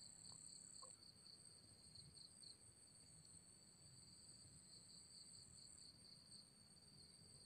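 Faint, steady insect chirring: two high, unbroken tones under otherwise near silence.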